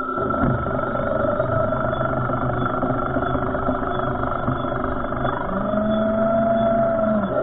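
Heng Long Tiger II radio-controlled model tank driving on pavement: its drive motors and metal tracks run steadily. Near the end a humming tone rises a little, holds, and then falls away.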